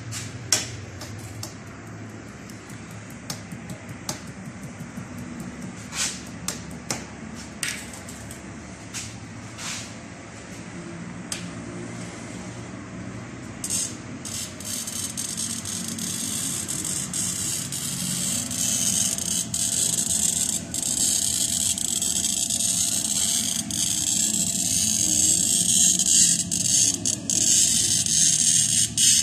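Scattered light clicks, then about halfway through a pen-style glass cutter starts scoring mirror glass: a steady, high, gritty hiss of the wheel on the glass that grows louder toward the end.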